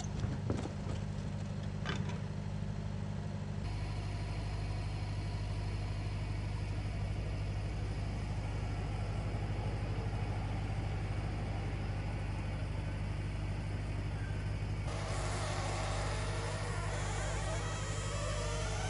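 Wood-Mizer portable band sawmill's engine running steadily as the sawhead travels along the log, with a few sharp knocks in the first two seconds.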